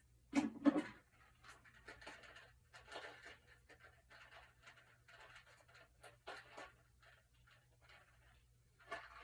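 Irregular scratchy rustling and handling noises from unpacking a pack of bracelets, with a louder brief handling sound about half a second in.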